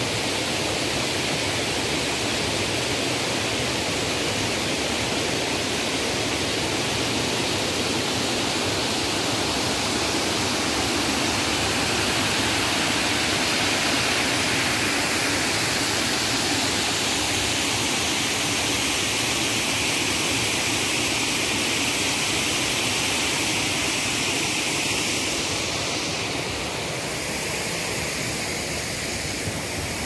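Steady rush of falling water cascading through the round concrete basins of a fish ladder and spilling over a weir, a little quieter near the end.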